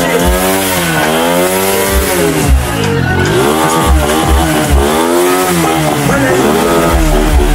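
Motorcycle engine being revved over and over, its pitch rising and falling about once a second.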